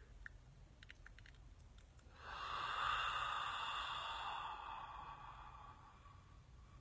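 A long, audible breathy exhale through an open mouth, a deep sigh, starting about two seconds in and slowly fading away over some four seconds.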